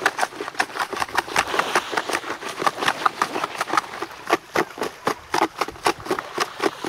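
Quick, irregular clattering and clicking of sea urchins rattling against each other and a plastic tub as it is swished through shallow seawater, with light sloshing.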